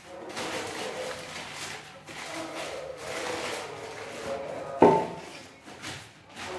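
Plastic bag rustling as its contents are tipped and shaken into a stainless steel storage tin, with one sharp metallic clank and a short ring nearly five seconds in.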